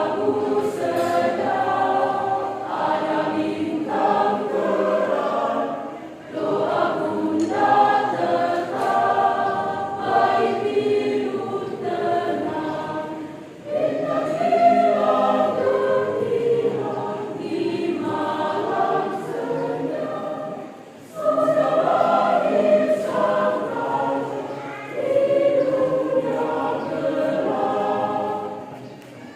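A church choir singing a Christmas hymn in parts, in phrases with short breaths between them.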